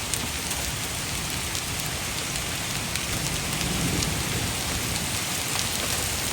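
Heavy rain pouring steadily and pattering on surfaces, with scattered sharp drop ticks and a brief low rumble about four seconds in.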